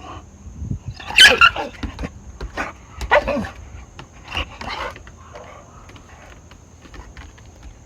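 A puppy barking in three short bursts, the first and loudest about a second in, the others about three and four and a half seconds in.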